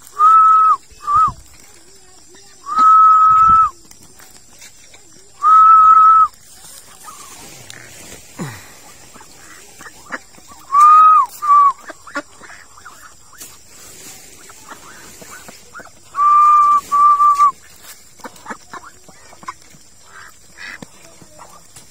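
Loud whistled notes, each a steady held tone of about half a second to a second, coming singly or in quick pairs several times, with faint scattered clicks in between.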